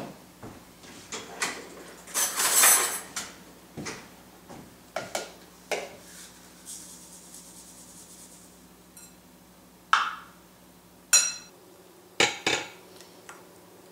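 Ingredients tipped into a glass mixing bowl, with a short rustling pour about two seconds in. Then a metal utensil stirs flour and water in the bowl, clinking sharply against the glass a few times near the end.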